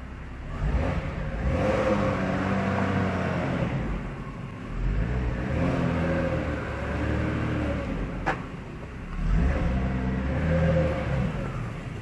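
Jaguar XJ40 XJ6 straight-six engine revving in three rising and falling swells as the car is reversed out of its bay, echoing in an underground car park. A single sharp click comes about two-thirds of the way through.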